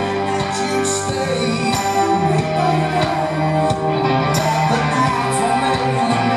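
Live rock band playing at full volume: electric guitar, bass and drums with steady cymbal hits, and a male lead vocal over them.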